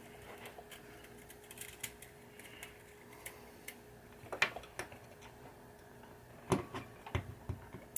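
Scattered light clicks and taps of wire and tools being handled while wire is routed on a pinball playfield, with a few sharper clicks about four and a half and six and a half seconds in. A faint steady hum underlies the first five seconds or so.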